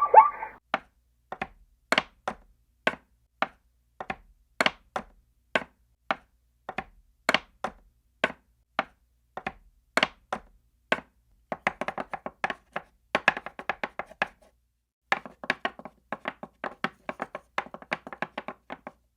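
A run of sharp, dry taps, at first about one or two a second, then coming faster in close clusters over the second half, with a short break near three quarters of the way through.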